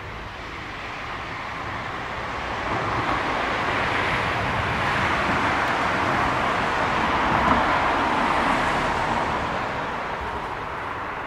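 Road vehicle passing by: tyre and engine noise that swells slowly to a peak about two-thirds of the way through and then fades away.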